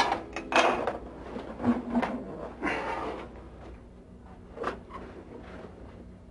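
A few sharp knocks and clatters, a short scrape about three seconds in, and a single click near five seconds.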